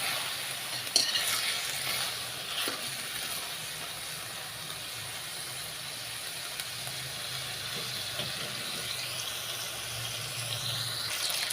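Sliced beef sizzling as it fries in garlic oil in a pan, with a couple of clinks from a utensil stirring it about a second in. The juices the meat has released are cooking off.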